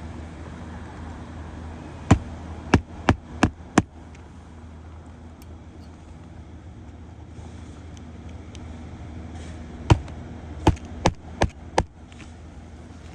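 Hammer driving roofing nails into asphalt shingles: two runs of five sharp strikes, each a first blow then four quicker ones, a few seconds apart.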